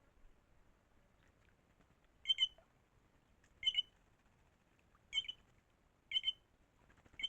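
A bird repeating a short, sharp double-noted call, five times at intervals of about a second to a second and a half.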